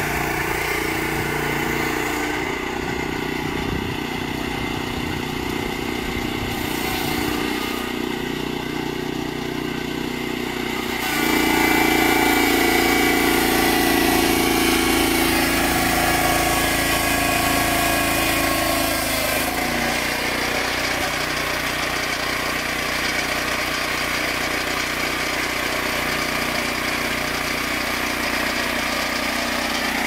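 Engine of a Junior Peterson swingblade sawmill running steadily. It grows louder and fuller for about eight seconds midway, then settles back.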